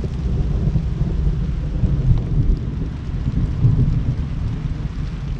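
Thunder rumbling overhead in a long, rolling grumble that swells twice, with steady rain falling.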